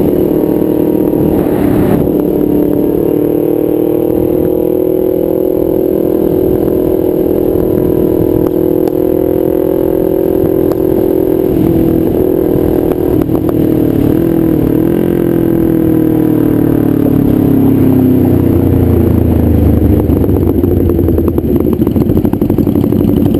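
Kawasaki Ninja 250R's parallel-twin engine through a nearly straight-piped DanMoto XG-1 exhaust, running loud and steady at cruising revs. Its pitch wavers briefly about two-thirds of the way through, then falls as the bike slows, and a deeper low rumble grows over the last few seconds.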